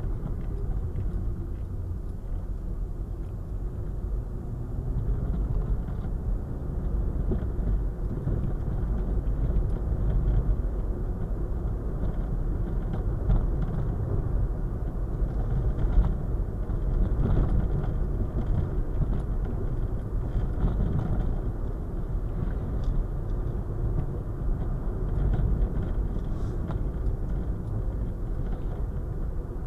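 Road noise of a car being driven, heard from inside the cabin: a steady low rumble of tyres and engine. Several short knocks stand out, the loudest about halfway through, as the car goes over the uneven road surface.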